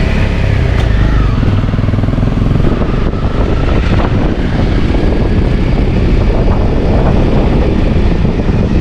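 Dirt bike engine running steadily on the move over a rough mountain track, loud and continuous, with a dense low rumble and riding noise.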